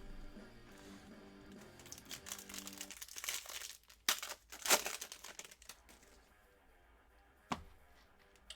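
Crinkling and tearing of a baseball card pack's wrapper being ripped open, with two louder rips near the middle and a single sharp tap near the end. Background guitar music plays under the first few seconds.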